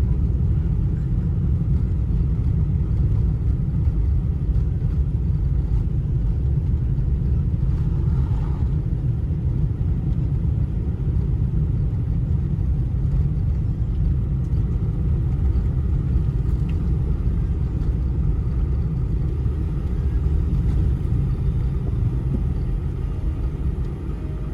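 Steady low rumble inside the cabin of a Boeing 747-400 in flight: engine and airflow noise.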